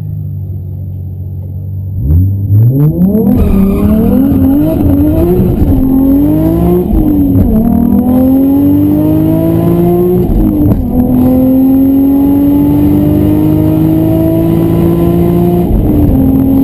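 Toyota Mark II JZX90 Tourer V's 1JZ-GTE turbocharged straight-six, heard from inside the cabin, idling at the start line and then launching at full throttle about two seconds in on a quarter-mile drag run. The revs rise and dip unevenly for the first few seconds. The engine then pulls through long climbs, with gear changes about 7.5, 10.5 and 16 seconds in.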